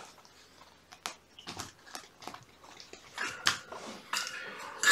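Kittens moving about: scattered light taps and clicks, growing busier over the last two seconds, with a few brief ringing clinks near the end.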